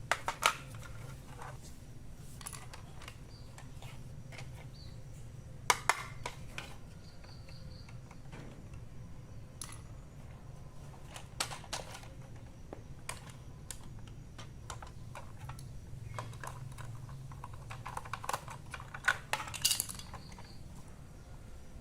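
Hard plastic items being handled and set down: scattered clicks and knocks, with sharper clusters about half a second in, near six seconds and around nineteen to twenty seconds, over a steady low hum.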